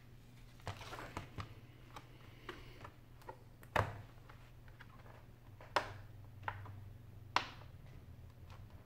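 Plastic back cover of a Samsung Galaxy Note 10.1 (N8000) tablet being pressed onto the frame, its retaining clips snapping into place in a series of sharp clicks. The loudest snap comes just under four seconds in, with a few more near six and seven seconds.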